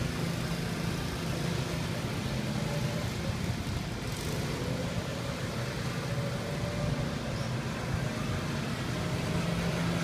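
A go-kart's small engine running steadily as the kart circles the track, growing a little louder near the end as it comes closer.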